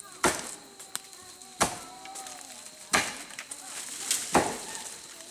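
Rice sheaves struck hard against a threshing surface to knock the grain off: a loud whack about every second and a half, the last two coming close together.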